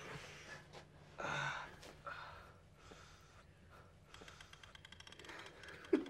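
Stifled gasps and sighs from people trying to stay silent. Near the end comes a fast, even run of faint clicks as the rubber-band toe-snapping contraption is worked by hand.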